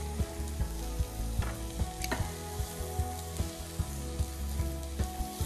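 Thin chicken breast fillets sizzling in a dry non-stick frying pan with no oil, a steady hiss. A background music track with a regular low beat plays underneath.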